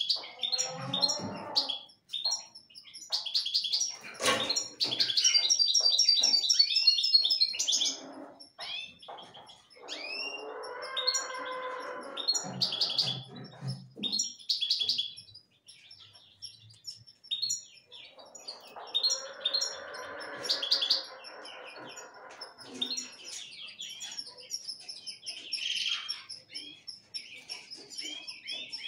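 Caged finches singing: bursts of high, rapid chirps and twittering trills with short gaps between them. The song is busiest and loudest a few seconds in.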